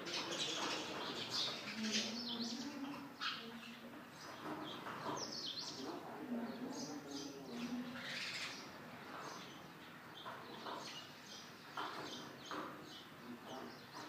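Sparrows chirping, many short, quick calls in irregular runs.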